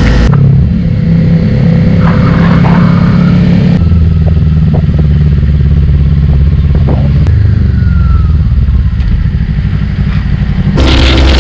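Motorcycle engine running through a newly fitted Austin Racing carbon aftermarket exhaust, a loud, steady low exhaust note.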